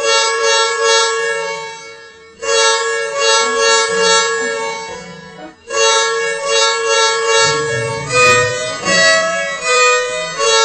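Edited Volvo bus horn sound effect: long held horn blasts of about three seconds each on one pitch, then a quicker run of notes alternating between two pitches from about eight seconds in, with a low rumble underneath.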